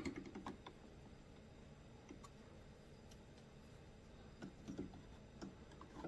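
Faint, scattered clicks and taps of small plastic and metal parts being handled as a carburetor is worked onto a Stihl handheld blower, a few in quick succession at the start and a few more spread out later.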